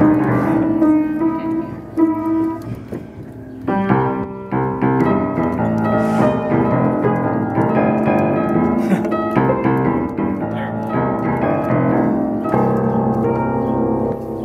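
Piano being played by hand, a string of notes and chords with a short lull about three seconds in before the playing picks up again. The piano is badly out of tune, with sticking keys.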